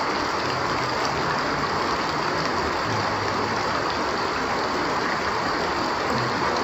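Steady heavy rain falling and splashing, an even hiss throughout.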